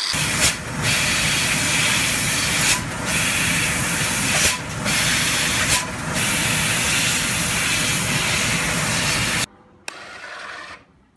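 Handheld angle grinder grinding a steel part, a steady hissing rush broken by a few brief dips as the disc eases off the work. It cuts off abruptly near the end, leaving a fainter sound for about a second.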